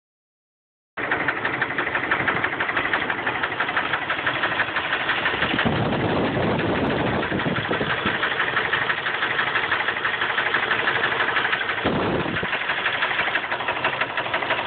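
A 4.0-litre engine idling with an odd, fast, regular ticking over its running sound. The low rumble briefly swells around six seconds in and again near twelve seconds.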